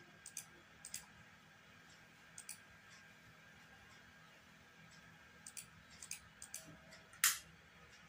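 Computer mouse clicking as chess moves are played in a fast bullet game: short sharp clicks, several in quick pairs, with one louder click near the end.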